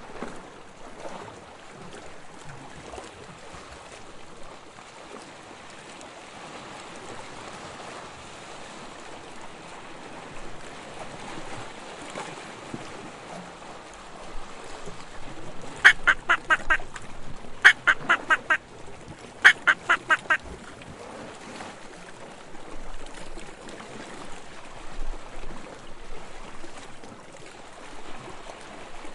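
Ducks quacking in three quick runs of rapid calls about two seconds apart, a little past the middle, over the steady wash of the sea.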